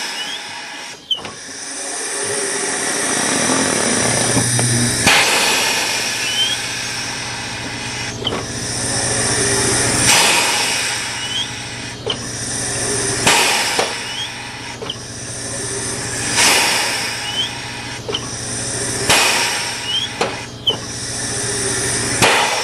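Compressed air hissing in repeated bursts, about every one and a half to two seconds, as the air-operated bead breaker of an antique tire-changing machine is cycled against a tire on an aluminum rim. A low steady hum starts about four seconds in.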